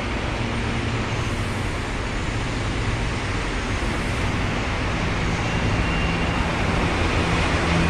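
Electric commuter train standing at the platform with its doors shut, its equipment and air conditioning giving a steady hum. About five seconds in, a new low tone and a faint high whine join and the sound grows a little louder as the traction equipment starts up to pull away.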